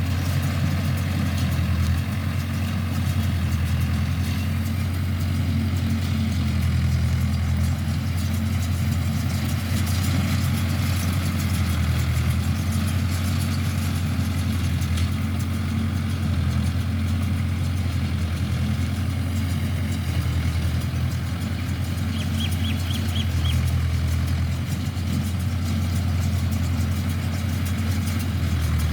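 Mahindra tractor's diesel engine running steadily at an even speed, driving a baler. A brief run of high pips sounds about three quarters of the way through.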